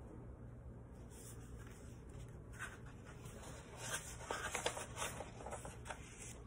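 Faint rustling of a picture book's paper pages being handled and turned, with a cluster of soft rustles between about four and five and a half seconds in.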